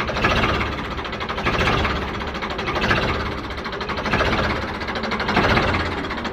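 An engine sound running with a fast, even chug that swells and eases about every second and a half.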